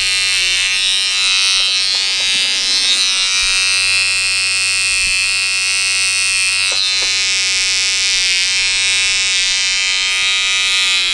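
Cordless electric hair trimmer buzzing steadily, unbroken, as it edges a hairline.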